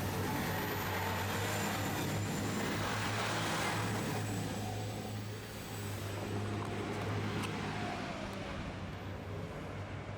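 An engine running with a steady low hum under a rushing noise, easing off in the second half and fading toward the end.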